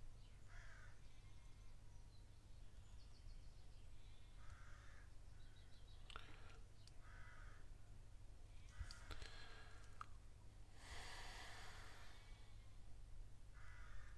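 Near silence: room tone with a low hum and faint bird calls. There are a few small clicks, and a soft breath about eleven seconds in.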